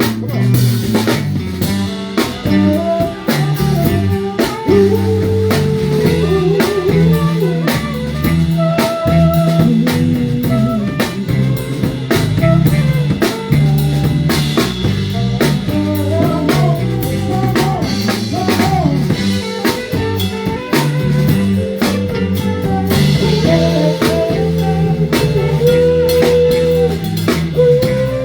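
Live band playing an instrumental passage: a guitar melody over drum kit and a steady beat.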